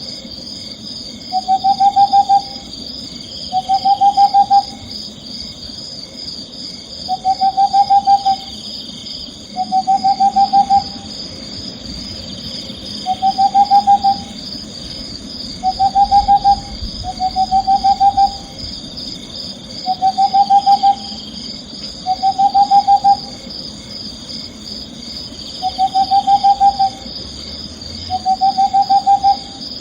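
Owl calling in short trilled hoots, each about a second long, about a dozen times at intervals of two to three seconds. A steady high, pulsing chirr runs underneath.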